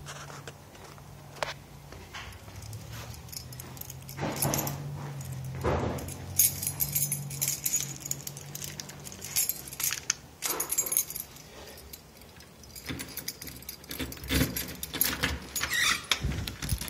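A bunch of keys jangling and clicking, then a key worked in a front door's lock, with rattling of the knob and deadbolt near the end.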